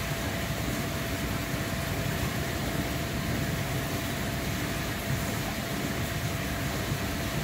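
Steady rush of water running through a laboratory open-channel flume, with a faint steady hum under it.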